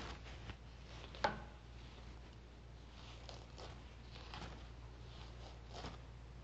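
Hurried footsteps as a short run of scattered light knocks, with one sharp clack about a second in, over a low steady hum.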